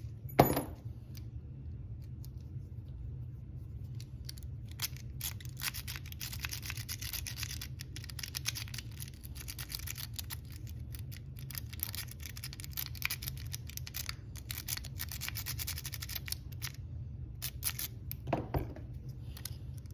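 Lock pick raking the pins of a Kwikset pin-tumbler lock: a rapid, irregular scratchy clicking that comes and goes, over a steady low hum.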